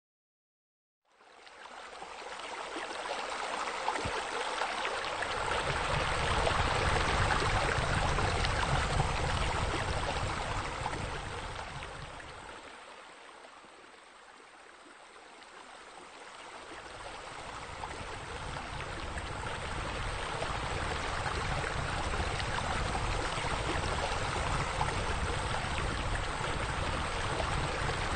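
Rushing, splashing water of a pool's rock waterfall and spa spillover, a steady wash that starts about a second in, swells, fades low around the middle, then builds back up.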